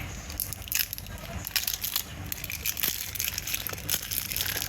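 Plastic packaging crinkling and crackling as it is handled and torn open, a dense run of irregular crackles.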